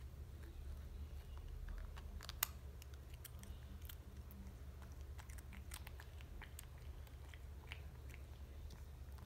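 A cat crunching and chewing on a tortilla chip: scattered small crunches and clicks, the sharpest about two and a half seconds in.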